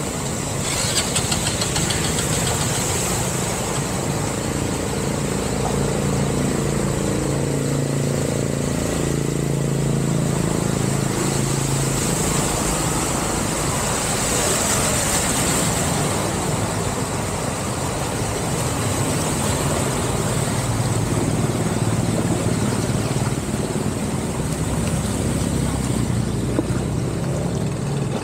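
Motorbike and car engines running as vehicles drive through a flooded street, with water swishing under their wheels. The water noise swells around the middle as a pickup truck pushes through, throwing up spray.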